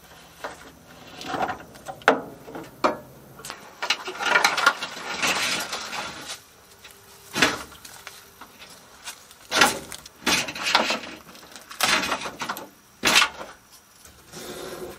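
Irregular knocks and clunks of car parts being handled while the car is taken apart, about half a dozen separate hits, with a stretch of rustling and scraping a few seconds in.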